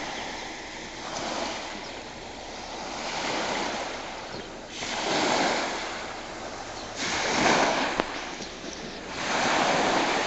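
Small waves washing onto a sandy beach, the surf swelling and easing about every two seconds. A single sharp click about eight seconds in.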